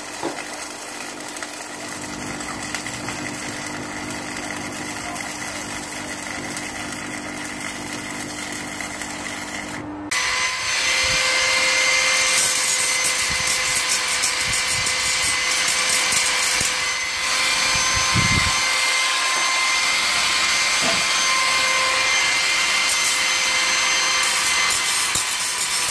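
Electric arc welding on steel box section gives a steady crackling hiss for about ten seconds. Then, abruptly, an angle grinder runs on the steel frame with a steady whine.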